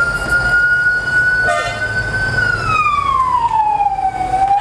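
A siren wailing: its pitch holds high for about two seconds, falls slowly, and starts to rise again near the end.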